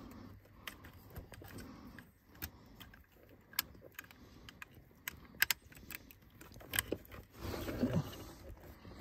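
Plastic wiring-harness connectors and wires clicking and rattling as they are handled and worked into place, with a few sharp clicks spread out and a longer rustle near the end.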